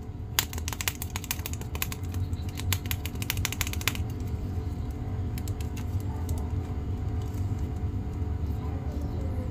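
Plastic action figure's ratcheted joints clicking as its arms and legs are bent into poses. A quick run of clicks fills the first few seconds, then they come more sparsely, over a steady low hum.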